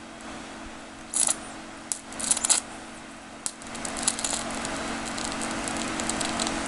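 High-voltage arc from a large flyback transformer driven by a ZVS driver: sharp snapping and crackling in irregular bursts over a steady hum, with the crackle growing denser after about four seconds.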